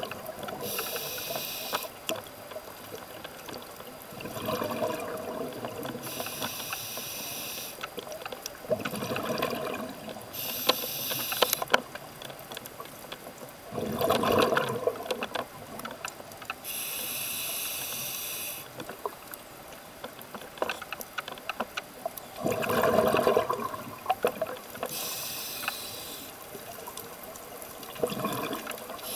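Scuba diver breathing through a regulator underwater: about five breaths, each a hissing inhale followed a few seconds later by a gurgling burst of exhaled bubbles, with faint clicks and crackles in between.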